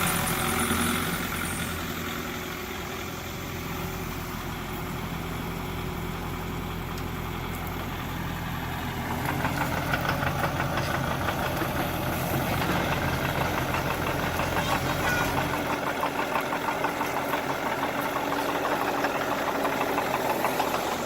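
An engine running steadily. About nine seconds in it gets louder and takes on a fast, even pulsing beat.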